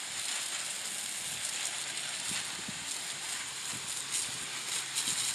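Garden hose spray nozzle jetting water onto crystals and a wire mesh sifting screen: a steady hiss of spray with splashing.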